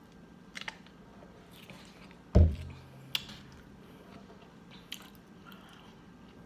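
Close-miked eating: a person chewing fried chicken tenders, with a few short wet mouth clicks and smacks. A single dull thump comes about two and a half seconds in.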